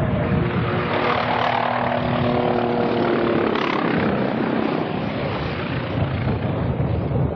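Hughes 500C helicopter flying low and banking hard, its rotor and turbine engine heard as a dense, steady noise, with a set of steady tones standing out during the first few seconds.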